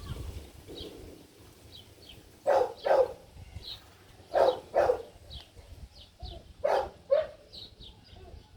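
An animal calling in short, loud pairs, three pairs about two seconds apart, over faint, repeated high chirps.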